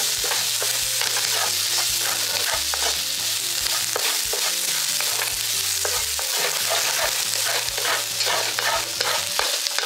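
Chopped red onion and minced garlic sizzling in hot oil in a pan, stir-fried with a wooden spatula that scrapes and pushes them around in repeated strokes.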